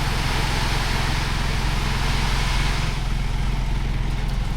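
Delivery truck's engine running steadily with a low hum. A higher rushing noise dies away about three seconds in.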